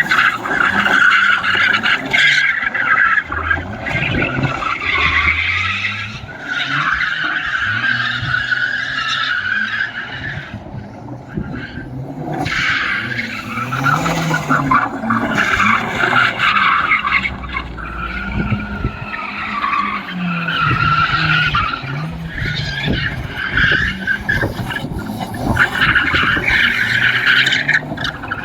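Turbocharged BMW E36 with an M43 four-cylinder engine, revving up and down again and again while drifting, with the hiss and scrabble of tyres sliding on loose dirt. With no blow-off valve, lifting off the throttle gives turbo flutter.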